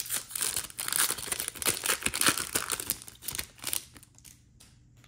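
Plastic-foil wrapper of a trading-card pack being torn open and crinkled. A dense run of crackles thins out to a few scattered ones after about four seconds.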